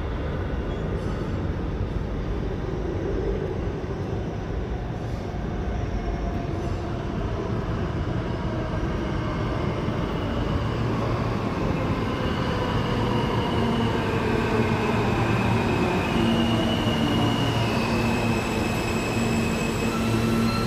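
New York City subway train on the BMT Broadway Line running through the station with a steady rumble. From about halfway through, a whine slides down in pitch, then a steady hum and a few high squeals come in near the end.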